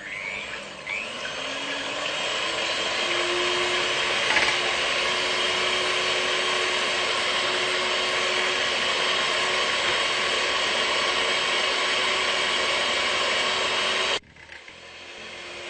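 Electric hand mixer whisking eggs in a bowl. The motor runs steadily, rising in pitch over the first few seconds, then is switched off suddenly near the end.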